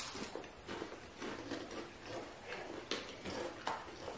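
Ridged wavy potato chips being chewed: irregular, crisp crunches close to the microphone.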